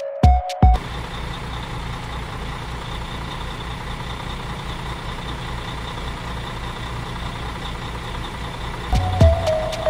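A truck engine idling: a steady low rumble with a fast, even pulse that sets in about a second in and gives way near the end. Electronic music beats sound briefly at the start and come back near the end.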